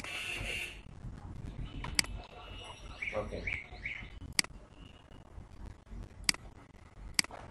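A few sharp computer mouse clicks, four in all spread over the seconds, as a Photoshop layer is selected and its shape loaded as a selection. Faint bird chirps sound in the background about three seconds in, over low room noise.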